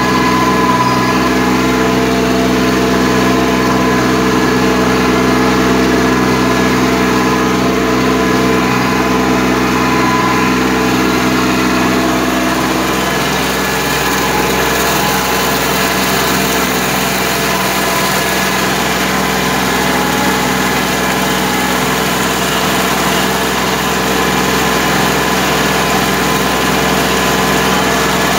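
Kubota B2140 compact tractor's diesel engine running steadily under load as it pulls a rotary tiller through paddy mud; its tone shifts about halfway through.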